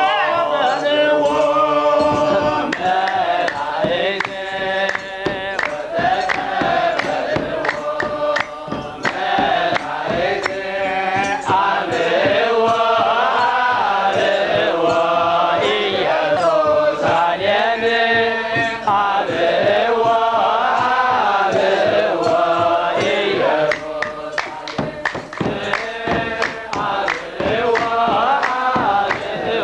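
A group of men singing an Orthodox Tewahdo liturgical chant together, with a beat of drum strikes and hand claps under the voices.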